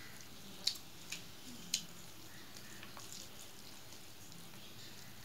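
Wet, sticky clicks of a hand mixing and squeezing rice with curry on a stainless steel plate. Three sharper clicks come in the first two seconds, then softer ones.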